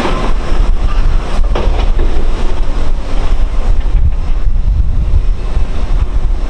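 Wind buffeting the microphone: a loud, gusty low rumble over a steady rushing noise.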